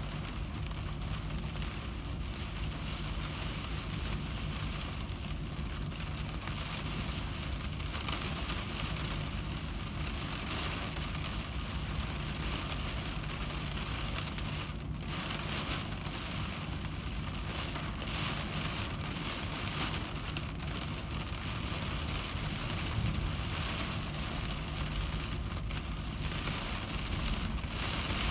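Heavy rain drumming steadily on a car windshield, a dense patter with a steady low hum underneath.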